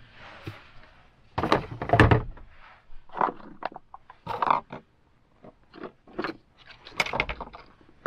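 Small objects being handled and set down inside a camper van: a string of irregular knocks, clicks and light rustling, with a heavier thump about two seconds in.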